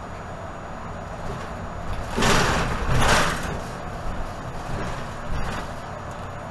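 Interior of a 2018 Nova Bus LFS diesel bus running, a steady low rumble, broken by two loud hisses of compressed air, each about half a second long, a little over two and three seconds in, and a smaller one near the end.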